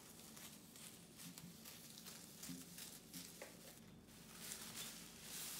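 Faint crinkling of a thin plastic bag being cut with scissors, with a few soft clicks.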